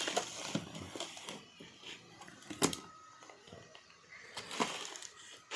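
Handling noises: a few sharp clicks and knocks as items are moved about, the loudest about two and a half seconds in and another about four and a half seconds in.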